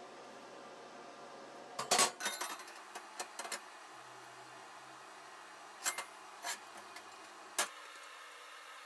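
Steel square tubing and metal parts clinking and knocking against a steel welding table as pieces are set in place: a quick cluster of clanks about two seconds in, the loudest, then a few single knocks spaced out after it.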